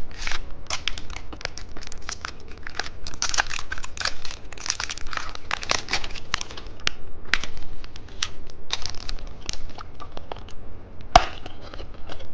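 Plastic candy wrapper crinkling and tearing as it is handled and opened, in dense irregular crackles, with one sharp click near the end.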